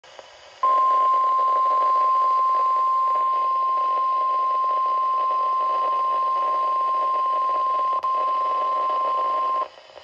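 NOAA Weather Radio warning alarm tone: one steady, high beep of about 1050 Hz starting under a second in and held about nine seconds, with a brief flicker near the end. It plays through a Midland weather alert radio's small speaker over a hiss of broadcast static, and it signals the start of a severe thunderstorm warning broadcast.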